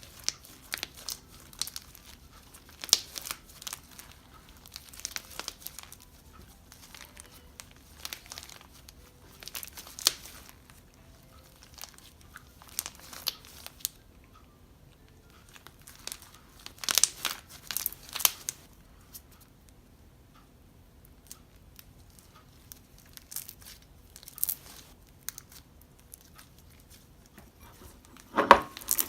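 Hands squeezing and pressing glossy slime packed with chopped foam dart pieces, giving irregular crackling and popping clicks in scattered clusters. The busiest run of crackles comes about two-thirds of the way in, and a fuller, deeper pop comes near the end.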